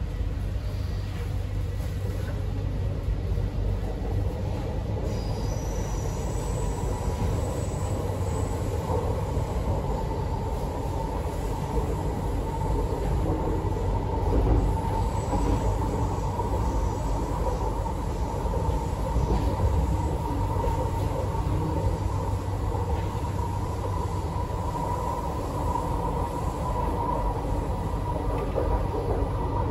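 MTR Tuen Ma line C-train running between stations, heard from inside the carriage: a steady rumble of wheels on track with a motor whine that strengthens after the first several seconds. A few thin high tones step up in pitch about five to nine seconds in.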